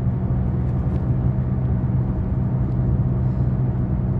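Car driving along, heard from inside the cabin: a steady low rumble of engine and road noise with a constant low hum.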